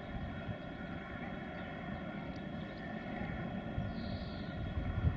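A steady, distant engine drone holding an even pitch, over a low, uneven rumble that swells briefly near the end.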